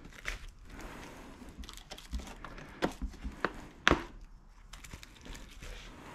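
Handling of a hard plastic dirt-bike side panel still in its protective film: rustling and crinkling, with a few sharp taps and knocks as it is held up against the bike, the loudest about four seconds in.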